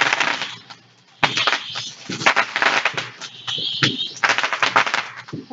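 Fireworks going off in a dense, rapid crackle of sharp cracks and pops. It is very loud: one burst at the start, then a near-continuous run of crackling from about a second in.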